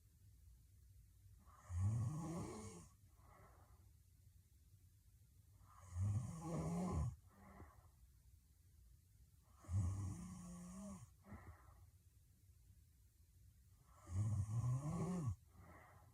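A woman snoring hard in her sleep: four loud snores about four seconds apart, each followed by a softer breath out.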